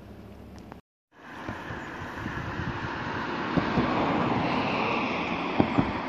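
Wind buffeting a phone's microphone: a steady rushing noise with scattered low thumps, cutting in after a brief dropout about a second in and swelling loud.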